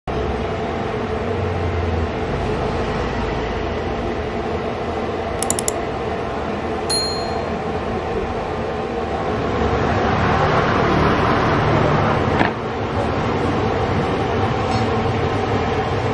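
Steady rushing din of a busy food stall. A few light clicks come about five seconds in, a short ringing clink near seven seconds, and a single sharp knock about twelve and a half seconds in.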